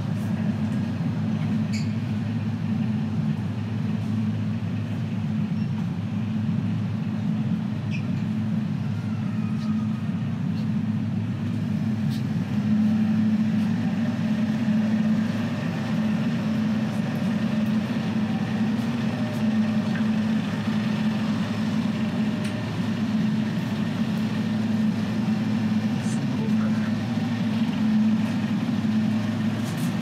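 Steady low droning hum of airport terminal background noise, with faint indistinct voices of people around.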